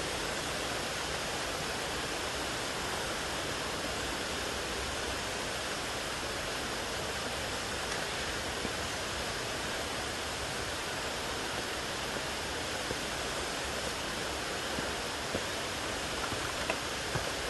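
Steady, even rushing of water, a constant hiss with no pauses, with a few faint knocks near the end.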